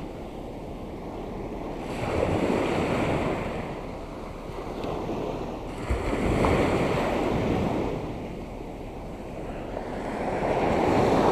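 Small Black Sea surf washing up a sandy beach: three swells of rushing water about four seconds apart, with wind buffeting the microphone.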